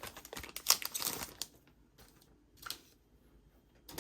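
Paper and plastic album contents being handled: light rustling and quick clicks and taps, clustered in the first second and a half, with one more click a little past halfway.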